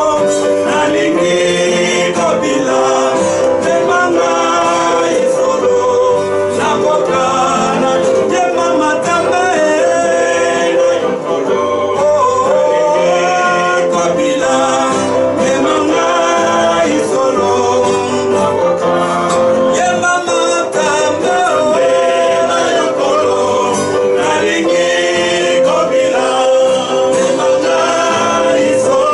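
A man singing a gospel song while strumming an acoustic guitar, his voice carrying the melody over the guitar's steady chords.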